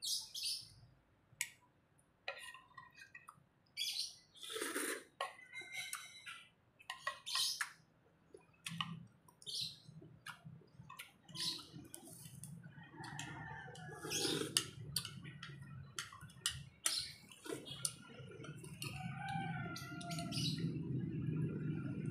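Small birds chirping, with short clinks of spoons and forks against plates and bowls. A steady low hum comes in about nine seconds in.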